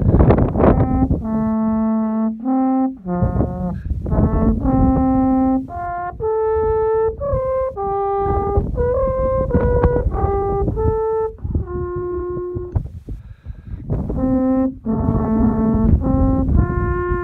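Alphorn playing a slow melody of held notes, each about a second long, moving up and down through the horn's natural tones, with a short pause about two-thirds of the way through.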